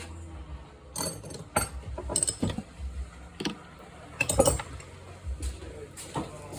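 Metal hand tools clinking and knocking: irregular sharp clicks, some with a short metallic ring, as a wrench is worked on the nut of a fuel-line fitting on a tank.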